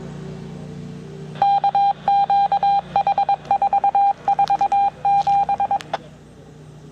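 Pulsed single-pitch signalling tone over a dispatch radio: two longer beeps, then groups of rapid short beeps for about four seconds, sent by county dispatch right after it announces the siren test.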